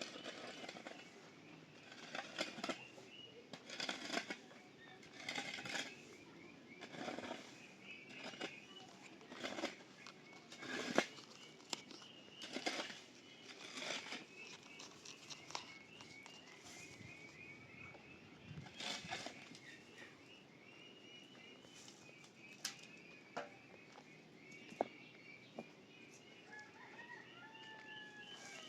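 Small birds chirping steadily, with repeated short, noisy strokes every second or two that thin out after the midpoint.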